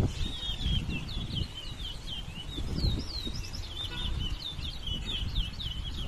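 Caged towa-towa finches singing in a song race: rapid runs of short chirping notes that swoop up and down, repeated throughout, with a low rumble underneath.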